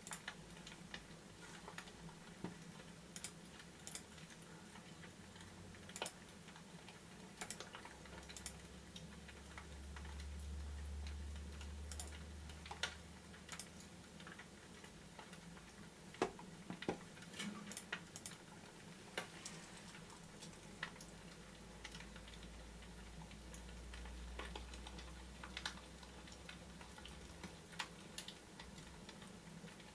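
Wood fire crackling in a fireplace: faint, irregular sharp pops and snaps over a low hum, with a low rumble that swells twice.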